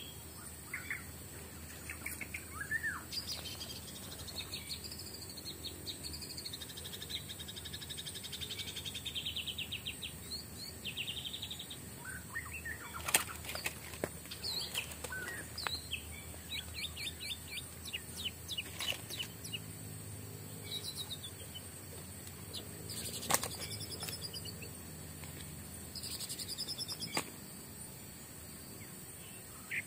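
Forest birds chirping and trilling, with rapid series of calls, over a steady high-pitched insect drone. Two sharp clicks come near the middle and again about three-quarters through.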